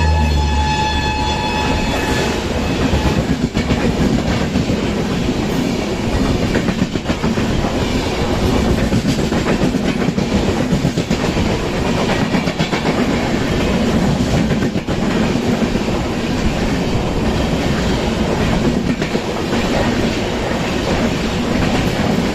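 Indian Railways passenger train running on the track: a horn sounds and stops about two seconds in, then steady loud rail noise with a rapid clickety-clack of wheels over the rail joints.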